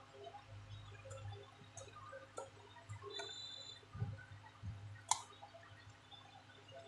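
Faint plastic clicks and taps from a laptop touchpad being handled and pressed into its palm-rest top case, with the sharpest click about five seconds in. A brief high beep sounds just after three seconds.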